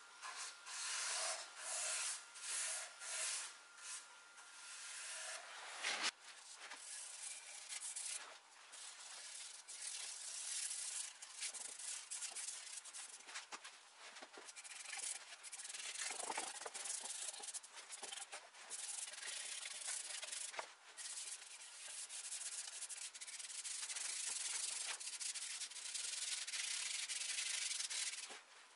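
Cloth pad and brush rubbing over wood in repeated strokes, a dry scratchy hiss: stain being worked into the cabinet base, then shellac rubbed onto a wooden frame with a pad. A sharp knock about six seconds in.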